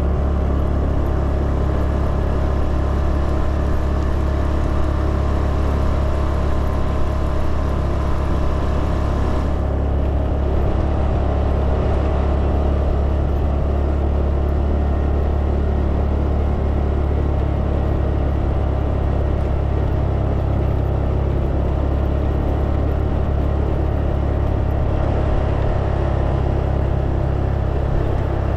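Motor scooter engine running at a steady cruise, with wind and tyre noise over a paving-block road.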